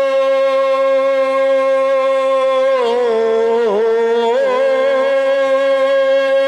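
A man's voice holding one long sung vowel in Urdu marsiya recitation. The pitch stays steady, then wavers in a few ornamental dips in the middle before settling back on the note.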